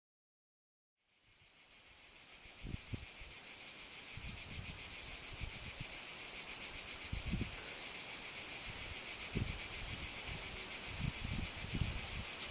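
A dense chorus of chirping insects fades in about a second in and grows over the next few seconds, then holds steady as a high, fast-pulsing trill. A few soft low thumps sound underneath.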